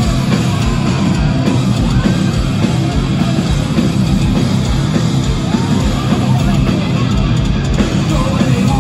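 Heavy metal band playing live through a concert PA, with loud guitars and a steady kick-drum beat, heard from within the crowd.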